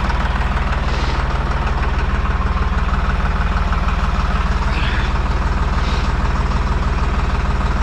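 Deutz-Fahr 55 F Keyline tractor's diesel engine idling steadily while warm, its idle speed just raised to sit right on the tachometer's mark.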